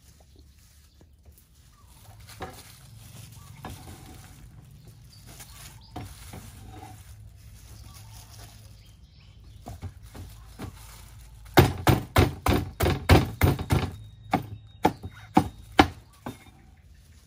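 Kitchen knife chopping taro stalks on a wooden cutting board. After a stretch of softer cutting and handling, a quick run of loud, sharp chops, about three a second, starts two-thirds of the way in and lasts some four seconds.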